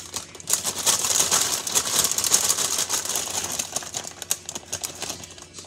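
Plastic bag of spring mix salad crinkling as handfuls of leaves are pulled out of it into a bowl: a dense run of crackles that starts about half a second in and thins out near the end.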